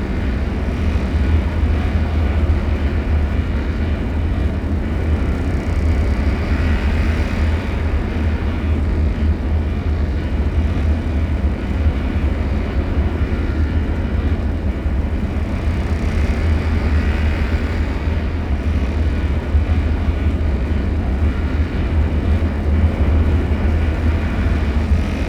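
Dark horror ambience drone: a steady, deep low rumble, with a fainter higher wash that swells and fades twice.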